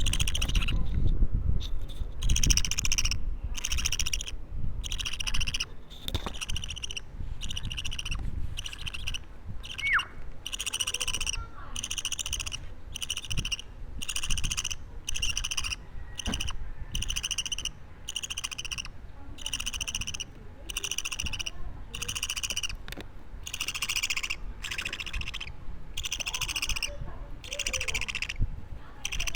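Budgerigar chick about two weeks old calling over and over, one short call roughly every second, each held at a steady high pitch.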